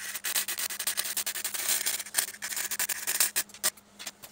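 Welding arc crackling and sputtering as a patch plate is welded onto a steel chassis rail, in stops and starts that thin out near the end.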